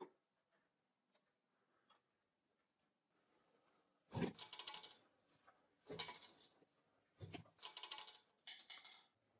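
Loose steel ball bearings dropping and scattering onto a cast-iron milling machine surface in four bursts of bright, bouncing clatter, preceded by a few faint ticks.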